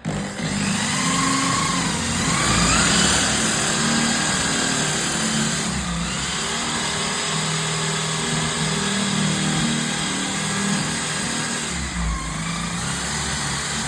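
Handheld electric power tool running hard, its motor spinning up in the first few seconds and holding a steady pitch, with a rising sweep again near the end.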